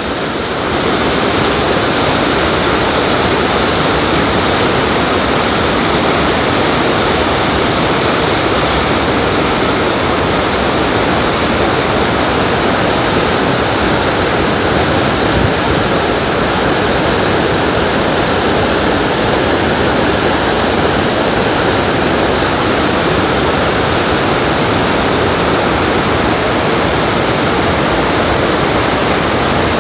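The Rhine Falls, a large waterfall, pouring in a loud, steady rush of water.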